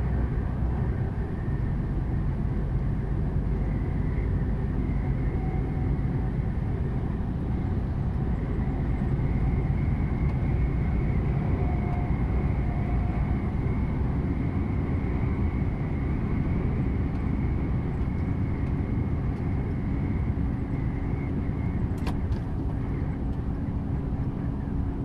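Steady road and engine noise inside a vehicle cruising at motorway speed: a continuous low rumble with a faint steady whine on top. A single sharp click about 22 seconds in.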